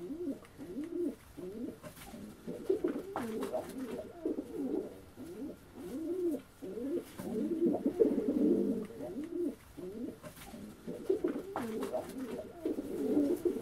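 Several domestic pigeons cooing, their low rolling coos overlapping one another almost without pause, with a few short clicks among them.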